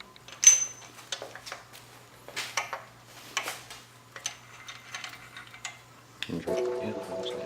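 Small metal engine parts, the main bearing shells and thrust washer, clinking and tapping as they are handled and set on the engine block. There is a sharp ringing clink about half a second in, then scattered lighter clicks. About six seconds in, background music starts.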